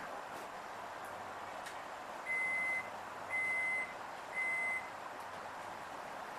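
Suburban electric train's door warning beeper sounding three even, high beeps about a second apart, over the steady hum of the carriage: the doors are about to close before departure.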